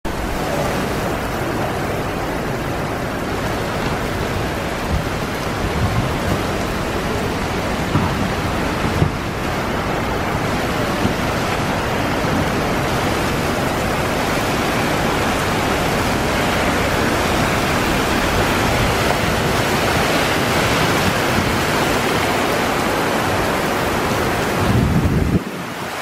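Heavy typhoon rain pouring onto open pavement, a dense steady hiss. A few low thumps hit the microphone, the loudest just before the end, where it cuts off sharply.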